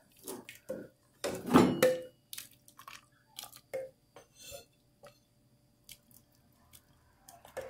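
A silicone ladle stirring cooked beans in an aluminium pressure cooker: a series of short scrapes and knocks against the pot with wet squelching of the bean broth, the loudest about a second and a half in.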